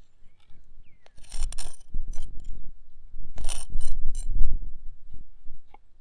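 Metal cooking utensils and cookware being handled: a run of irregular sharp clinks and scrapes, busiest about a second and a half in and again in the middle.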